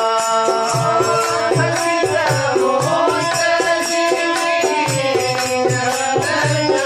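Instrumental interlude of a Hindi devotional bhajan: a sustained melody over a steady hand-drum beat with a rattling percussion accompaniment.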